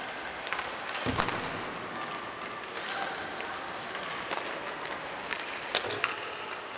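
Ice hockey play on a rink: sharp clacks of sticks and puck now and then, loudest about a second in and twice near the end, over a steady hiss of skates on ice, with faint distant voices.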